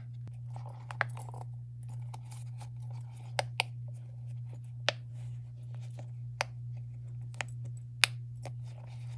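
Bubbles of a mushroom-shaped push-pop fidget toy being pressed in one by one, giving sharp single pops at irregular intervals, roughly one a second.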